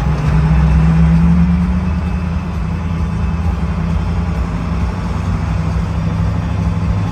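A vehicle's engine drone and road noise heard from inside the cab while driving, a steady low hum that eases a little after about two seconds.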